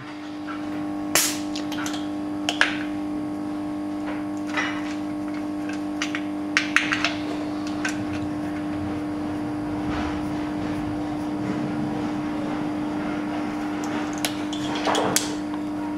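Scattered clicks and knocks as a compression tester's hose and screw-in fitting are handled and moved between spark plug holes on a BMW straight-six cylinder head, over a steady electrical hum; the engine is not being cranked.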